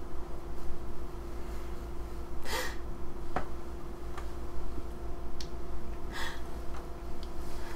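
Two short, sharp breaths or gasps from a person, about two and a half and six seconds in, with a few faint clicks, over a steady low hum.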